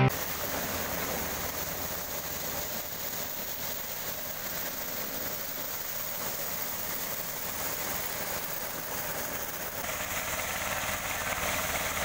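Engine-driven corn sheller running steadily as the dried corn is threshed, a continuous mechanical drone whose tone shifts slightly near the end.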